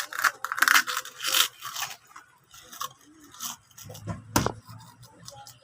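Close-up eating sounds: rapid crunching and scraping during the first two seconds, then scattered clicks and knocks of crunchy food being bitten and handled.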